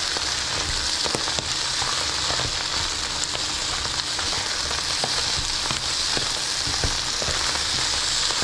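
Butter-fried rice with scrambled egg sizzling in a nonstick skillet, a steady frying hiss, as a spatula stirs through it with scattered light clicks and scrapes. The egg is cooking through in the hot rice.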